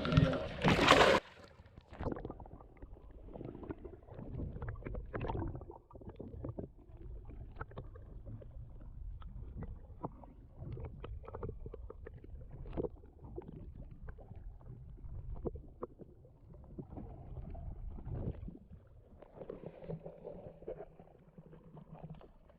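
Water sloshing and knocking against a small boat's hull, a low rumble with scattered small clicks and knocks. A loud burst of handling or wind noise comes in the first second.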